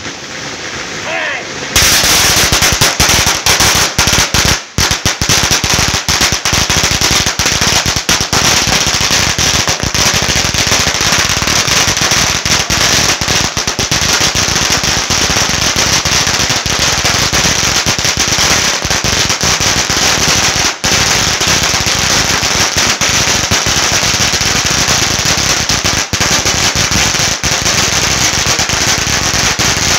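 A long string of firecrackers going off in a rapid, continuous rattle of bangs, starting about two seconds in once the lit fuse reaches the first crackers and carrying on without a break, with a few brief dips.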